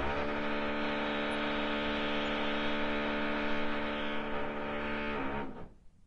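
Electric power drill running at a steady speed with a motor whine, then stopping about five and a half seconds in.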